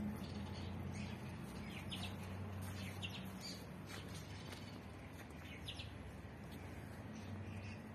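Small birds chirping: short, scattered high chirps over a low steady hum.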